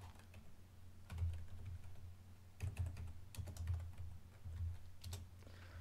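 Typing on a computer keyboard: runs of quick key clicks, a short burst about a second in, a longer run through the middle, and a few more clicks near the end.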